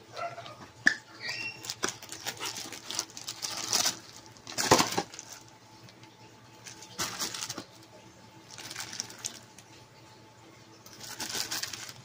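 Rustling and crinkling of a cardboard filter box and the plastic wrap around a spare vacuum cleaner filter as it is handled, in several bursts, the loudest about five seconds in.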